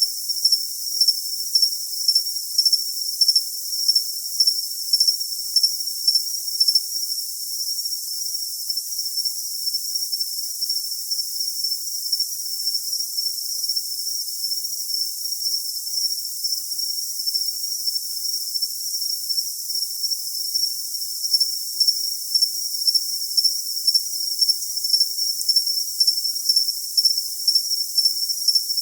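Crickets chirping: a steady high-pitched trill with no low sound beneath it, and a pulsing chirp about twice a second. The pulsing fades out for a long stretch in the middle and comes back about three-quarters of the way through.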